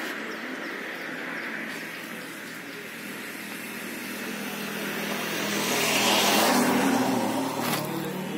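Road traffic noise with a vehicle passing close by, growing louder to a peak about six to seven seconds in, then fading.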